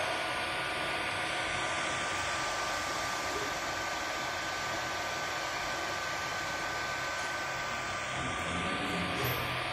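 Creality Ender-3 Pro 3D printer running mid-print: a steady fan whir with a few constant high-pitched tones from the machine.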